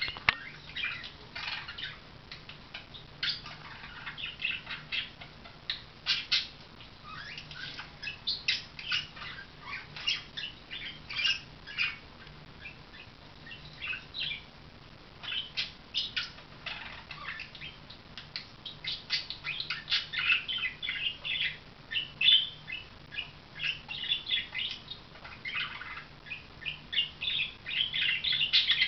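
Pet budgerigar chattering: a fast, continuous run of chirps, squawks and warbles, with a couple of brief pauses midway.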